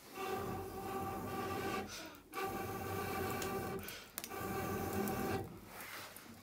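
Breath blown through a metal blowpipe into the embers of a wood fire to make it flare: three long blows with short pauses between, each a breathy rush carrying a hollow whistling tone from the pipe.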